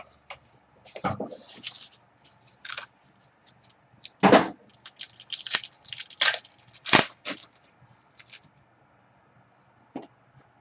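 A sealed box of baseball trading cards being opened and its cards handled: irregular crackles, clicks and short tearing sounds of packaging, loudest about four and seven seconds in.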